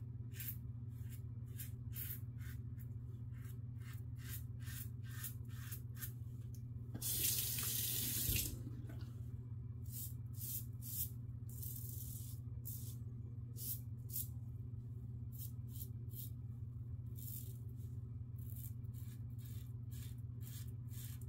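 Safety razor scraping through lathered stubble on the cheek and neck in quick short strokes, two or three a second. About seven seconds in, a tap runs briefly for a second or so.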